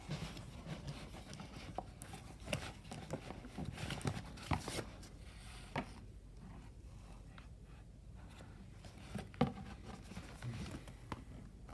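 Items being handled on a surface: scattered light taps and clicks, with a quieter stretch in the middle and two sharper knocks near the end.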